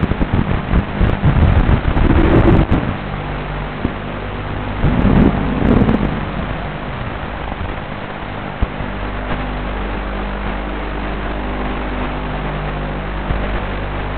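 FPV quadcopter's motors and propellers running in flight, a steady buzzing hum with two louder noisy surges in the first half, muffled and rough with wind noise on the onboard microphone.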